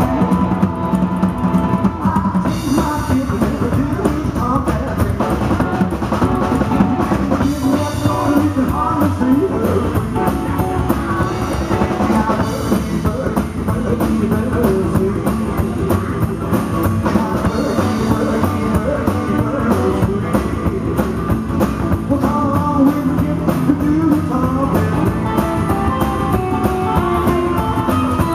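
Rockabilly band playing live: electric guitar, strummed acoustic guitar, upright double bass and drum kit, with a man singing.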